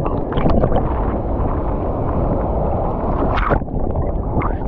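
Loud wind buffeting the microphone over the wash of the sea, with a few short knocks and clicks scattered through.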